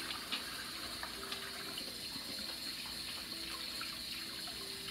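Kitchen sink tap running steadily while hands are washed under it.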